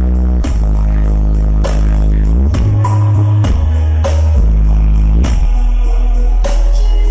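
Loud bass-heavy music from a big sound-system rig with eight subwoofers: deep held bass notes step to a new pitch every second or so under regular drum hits.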